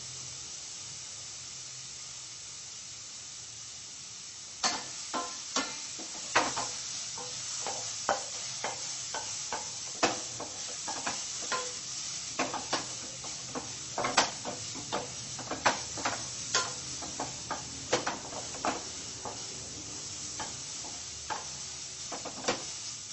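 Chopped onions sizzling steadily as they brown in a dry surgical stainless steel pan with no oil. From about five seconds in, a spatula scrapes and taps against the pan as the onions are stirred, about two strokes a second.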